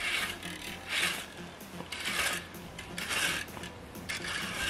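Fan rake dragged through grass in strokes about once a second, the tines scratching and swishing through the grass.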